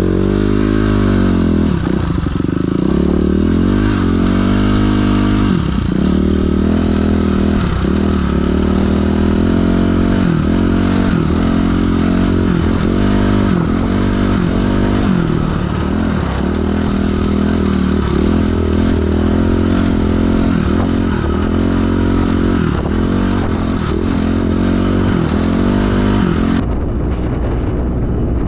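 Dirt bike engine being ridden hard, its revs climbing and dropping over and over as the rider works the throttle and gears.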